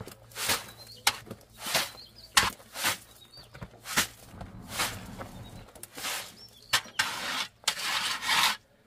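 Trowel scraping and slapping wet concrete in short, irregular strokes, with one longer scrape near the end. Birds chirp faintly in between.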